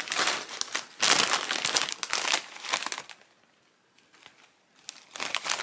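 A foil crisp packet crinkling as it is handled, in several loud bursts, with a quiet spell of about a second and a half before it starts again near the end.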